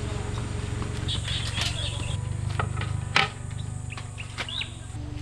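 Birds chirping over a steady low hum, with one sharp click about three seconds in.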